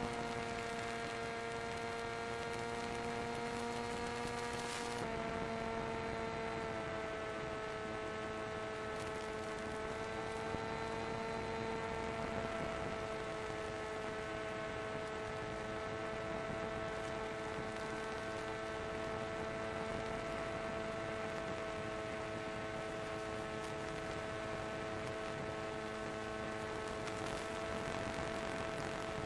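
Electric motor and propeller of a radio-controlled FPV plane in flight, a steady whine with small shifts in pitch about five seconds in and again around twelve seconds in as the throttle changes.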